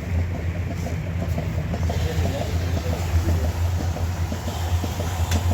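Dairy milking equipment running during milking: a steady low mechanical drone.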